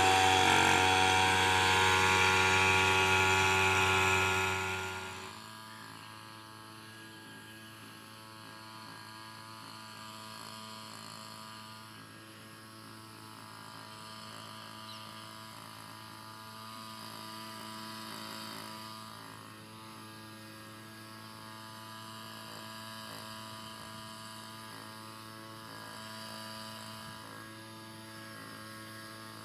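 Motorised backpack sprayer running with a steady hum while it sprays weedkiller. It is loud for about the first five seconds, then drops to a much fainter steady hum.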